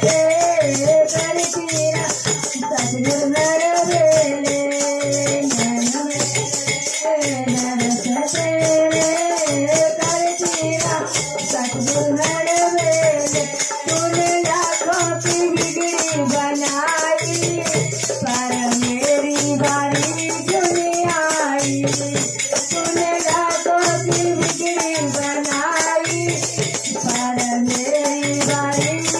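Women singing a Hindu devotional bhajan, accompanied by a dholak hand drum keeping a steady beat and a kartal, wooden clappers with metal jingles, rattling and jingling in time.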